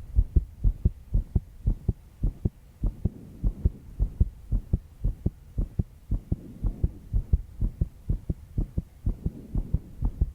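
A young woman's heartbeat, fast from stress: a steady run of short, low thuds, several a second.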